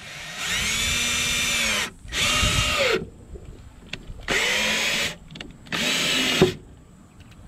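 Cordless drill driving screws into a wooden board in four separate runs, each a steady whine that drops in pitch as the screw seats and the trigger is let off.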